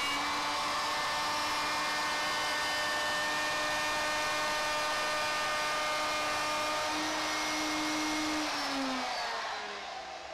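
Electric plunge router with an edge-profiling bit running at speed, cutting the edge profile of a wooden board on its final finishing pass. The steady whine rises a little in pitch about seven seconds in. The motor is then switched off and winds down, falling in pitch near the end.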